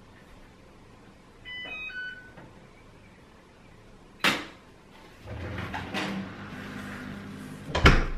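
Electrolux front-loading washing machine being set: a few short electronic beeps from the control panel as the program dial is turned, a sharp click as a button is pressed, then a low hum as the machine starts. Near the end a closet door shuts with a loud knock.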